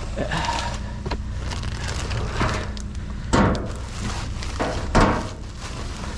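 Trash being rummaged through in a dumpster: rustling and clunking of bags and items being moved, the loudest about three and a half and five seconds in, over a steady low hum.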